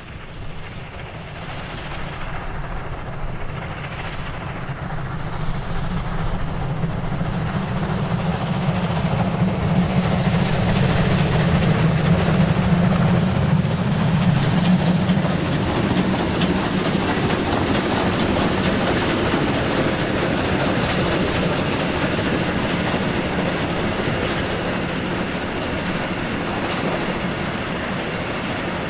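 Heavy German 2-10-0 freight steam locomotive working a train of hopper wagons, its exhaust beats growing louder as it approaches and passes close by about halfway through. The loaded wagons then roll past with wheels clicking over the rail joints.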